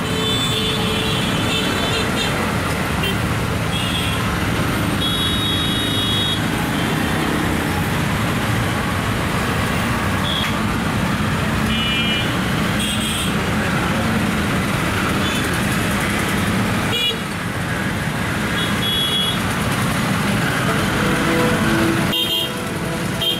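Busy road traffic of auto-rickshaws, motorbikes and cars moving off and crossing, engines running steadily, with frequent short high-pitched horn toots and people's voices.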